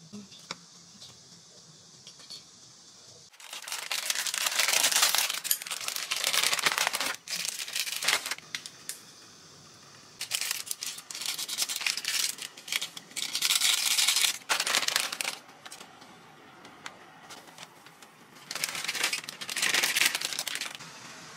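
Plastic instant-noodle packet (Neoguri ramen) crinkling and being torn open, in three bouts of rustling handling with quiet pauses between.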